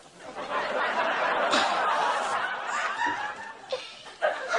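Studio audience laughing. It swells up in the first half second, dips briefly near the end and picks up again.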